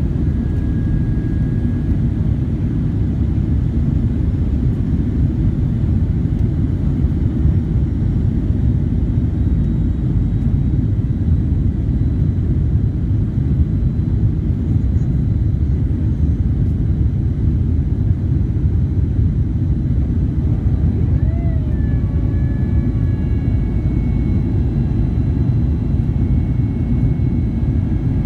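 Boeing 767-300ER cabin noise: a steady, loud low rumble of the jet engines and rushing air, heard from inside the cabin with the aircraft airborne or at full thrust. A faint short tone rises and settles about three-quarters of the way through.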